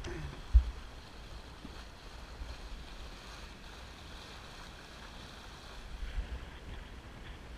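Water rushing and splashing along the hull of a Drabant 27 sailboat moving fast through waves, with wind rumbling on the microphone. A single low thump about half a second in.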